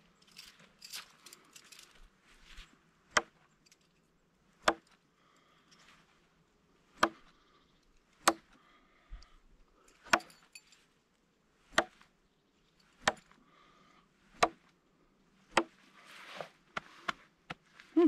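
Steel throwing knives striking and sticking into a palm-trunk stump, one sharp thunk at a time: about ten strikes, one to two seconds apart. A few lighter clicks come just before the last strike.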